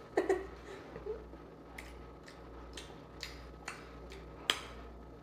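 Irregular, scattered crunches and clicks of someone chewing a crunchy bite of jalapeno stuffed with cream cheese and Takis, over a steady low hum.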